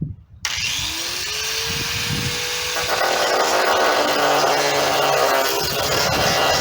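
Electric angle grinder switched on and spinning up, its motor tone rising, then cutting into a steel bolt from about three seconds in, the grinding getting louder and harsher.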